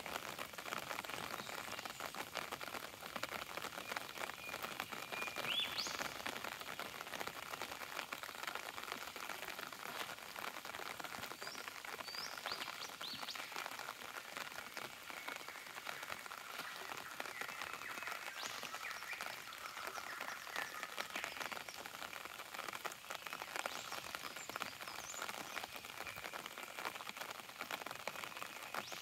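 Steady rain pattering and dripping on wet forest foliage, a dense hiss of fine drops. A few brief rising animal calls come through it, about five seconds in, around twelve seconds, and again later.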